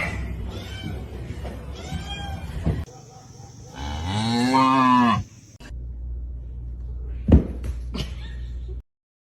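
A cat meowing a few short times, then one long, low, drawn-out call that rises and falls, almost like a moo. Near the end come two sharp knocks, then sudden silence.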